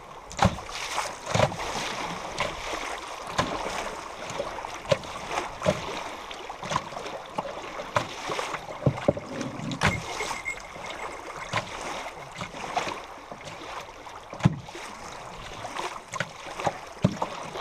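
River water rushing along a canoe's bow as it runs through choppy current. Short, sharp slaps and knocks of waves against the hull come at irregular intervals, about one or two a second.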